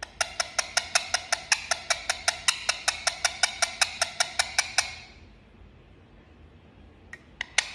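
Indian ringneck parrot making a rapid run of kissing clicks, about six a second, that stops about five seconds in and starts again near the end.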